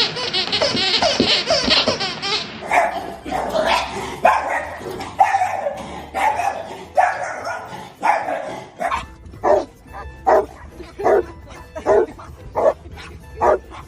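A dog barking over and over, about one bark a second, after a couple of seconds of high, wavering cries at the start.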